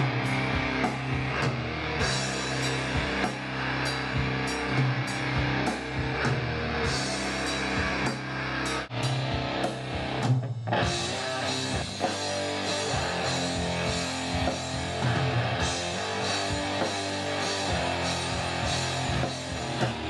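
Rock music from a studio session: electric guitar over a drum kit playing steadily, with a brief break about halfway.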